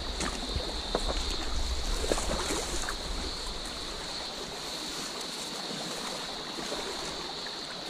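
Small shallow stream running over stones and gravel, a steady rush of water, with a steady high hiss over it. A low rumble on the microphone and a few light knocks come in the first three seconds.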